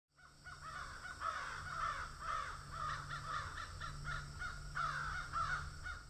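Birds calling over and over, harsh cawing calls about three a second, over a steady low hum.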